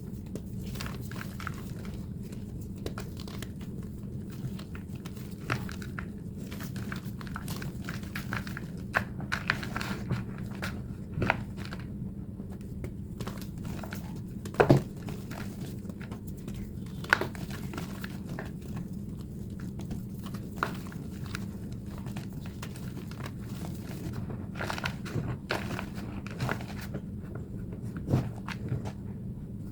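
A thick block of plain white gym chalk being crushed and crumbled by hand, a dense run of dry crunches and crackles with a few sharper snaps, the loudest about halfway through. A steady low hum runs underneath.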